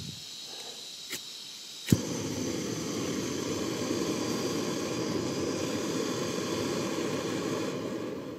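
Compact canister gas stove being lit: gas hisses from the opened valve, a click sounds about a second in, then a sharp pop about two seconds in as the gas catches, followed by the steady roar of the burner, which eases a little near the end as the flame is turned down.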